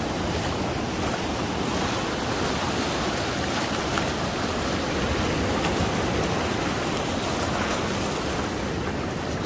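Surf washing up a sandy beach: a steady rush of breaking waves and foam.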